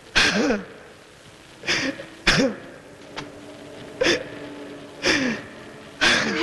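A person sobbing in short, gasping catches of breath, about six over the few seconds. Each catch carries a brief wavering cry.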